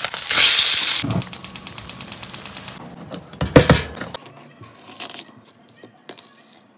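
Fish fillets sizzling in a hot pan under a pressing spatula, then a fast, even run of clicks at about eight a second. A knife then cuts into a whole sea bream on a cutting board, with a few heavy thuds as it goes through behind the head and lighter cutting sounds after.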